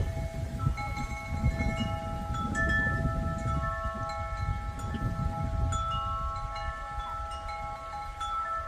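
Wind chimes ringing, several tones struck at irregular moments and ringing on over each other, over a low rumble.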